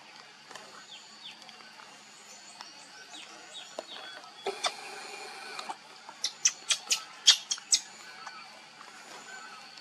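Baby monkey squealing while an adult monkey handles it. A cry-like stretch comes about halfway through, then a quick run of about eight short, sharp, high-pitched squeaks near the end, the loudest sounds here. Faint high chirps sound in the background.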